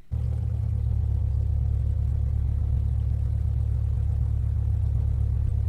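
Car sound effect: a steady low engine drone, as heard riding in a car, starting suddenly.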